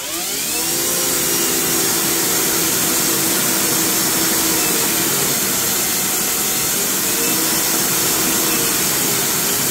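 EGO 56V cordless pressure washer's electric motor and pump spinning up to turbo speed over the first second, then running steadily with the hiss of a 40-degree fan spray striking concrete.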